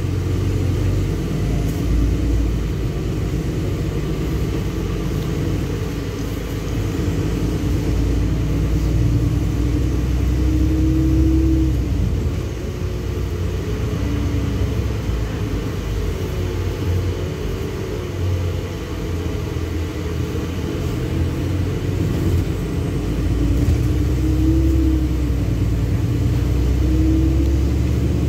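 Ride inside a LiAZ-6213 articulated city bus under way: the low rumble of the bus's engine and road noise, with a faint whine that rises and falls in pitch several times as the bus speeds up and slows.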